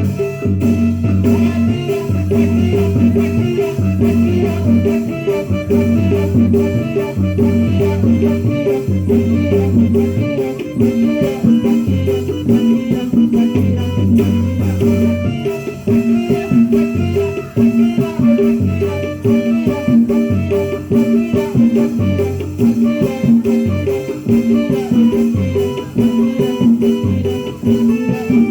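Instrumental music with a repeating low bass line and a steady beat.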